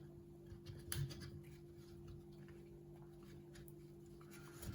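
Faint scattered clicks and light rubbing of small plastic parts and cables being handled, with a slightly louder click about a second in, over a steady low hum.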